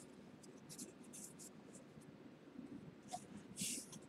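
Faint swishes of trading cards sliding against each other as they are handled and sorted by hand: a few short strokes, the loudest about three and a half seconds in.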